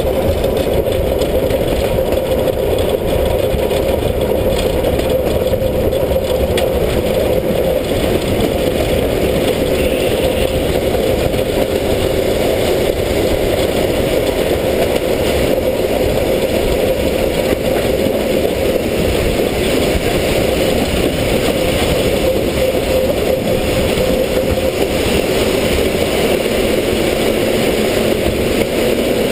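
Steam locomotive S 33-037 running along the line, heard close up from its side: a loud, steady running noise with no break.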